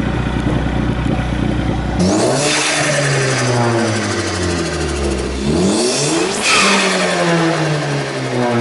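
Ford Focus ST's turbocharged engine idling steadily, then revved twice, each time rising and dropping back. It runs smoothly on a fresh set of MSD ignition coils that cured its misfire and rough idle.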